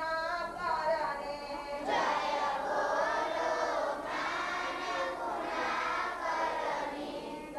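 A gathering singing a devotional prayer song in call and response. One voice finishes a line, and about two seconds in many voices, mostly girls and women, sing the answering line together.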